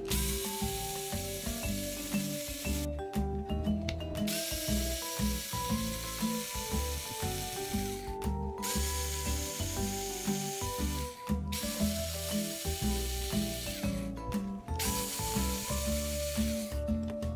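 Cordless drill-driver backing small screws out of a plastic RC transmission case. It runs in about five spurts of a few seconds each, with short pauses between, over background music with a steady beat.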